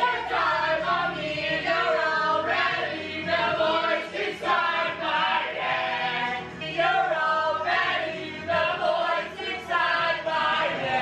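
A group of men and women singing together into karaoke microphones over a backing track.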